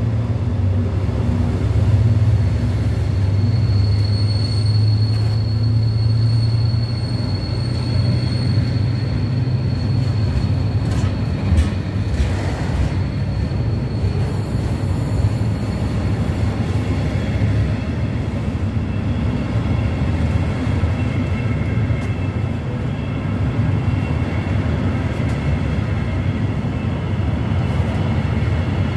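A slow freight train of loaded log wagons, hauled by a Class 70 diesel, rolling past with a steady low rumble. A thin high wheel squeal runs from about 4 to 9 seconds in, and a few knocks come about 11 to 12 seconds in.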